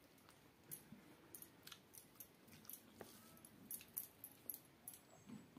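Quiet close-up eating sounds: chewing and mouth smacks from mouthfuls of rice with dal, with soft wet squishes as fingers mix the rice on a steel plate. Irregular small clicks, several a second.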